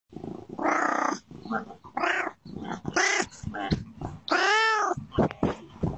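A domestic cat meowing repeatedly, right up against a video doorbell's microphone. The meows come about half a second apart, and the longest, about four and a half seconds in, rises and then falls in pitch.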